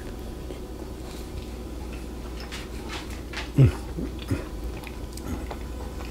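A mouthful of pot roast being chewed, with faint mouth clicks. About three and a half seconds in comes one short, loud vocal sound that falls in pitch, then two fainter ones.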